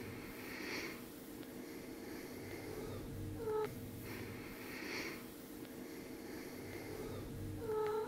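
A one-week-old tabby kitten gives two short, high mews about four seconds apart, with soft breathy sounds in between.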